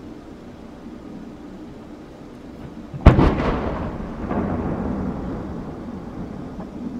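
Aerial fireworks shell bursting with one sharp, loud boom about three seconds in, followed by a long rolling echo that swells again about a second later and slowly fades.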